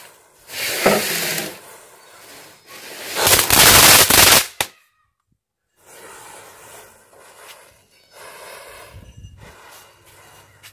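A chain of matchsticks catching fire head after head, a fizzing, crackling hiss. It surges loud about a second in, and again louder for over a second around the four-second mark, then drops out for about a second and goes on more quietly with small crackles.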